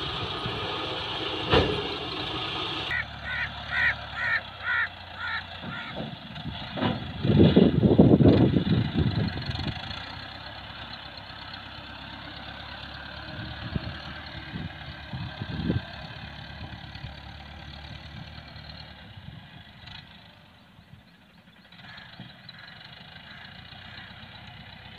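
Massey Ferguson tractor's diesel engine working under load as it pulls a sand-laden trolley through soft sand, surging loudly about seven seconds in and then settling to a steadier, quieter run.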